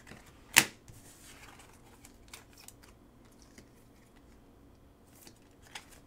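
Plastic clicks and taps from a trading card being slid into a rigid clear top loader, with one sharp click about half a second in. The rest are faint scattered ticks.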